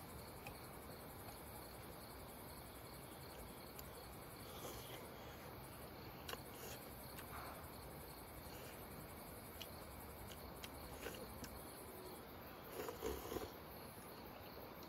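Crickets chirping faintly in a steady, evenly pulsing rhythm, with a few soft clicks of a wooden spoon against a wooden bowl.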